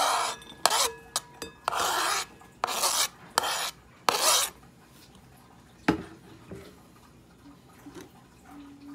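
Minced garlic being scraped off a plastic cutting board into a ceramic bowl: about six short rasping scrapes in quick succession, then a single knock about six seconds in.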